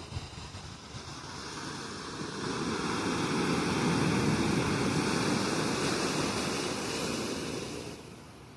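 Sea surf: a wave breaking and washing up the shore, its rushing hiss building over the first few seconds and dying away near the end.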